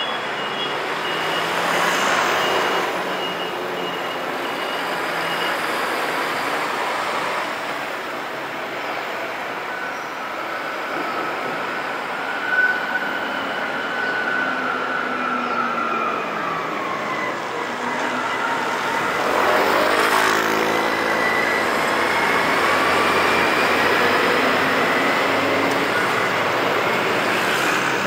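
Road traffic through a street intersection: motor scooters, cars and a bus drive past, their engines rising and falling in pitch. There is a brief sharp knock a little before the middle, and one vehicle passes close about two-thirds of the way through.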